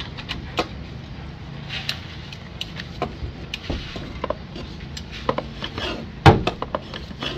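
Hand tools, a socket on an extension bar, worked on the exhaust downpipe bolts in a car's engine bay: scattered metallic clicks and knocks, with one louder knock about six seconds in.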